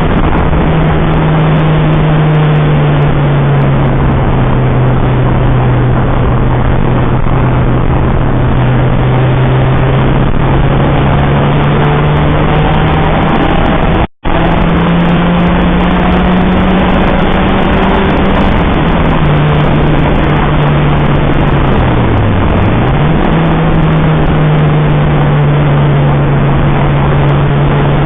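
Citroën Saxo VTR engine running hard at fairly steady revs, heard from inside the car over loud road and wind noise. The note drops briefly and climbs back about three-quarters of the way through, as on a lift or gear change, and the sound cuts out for a moment about halfway.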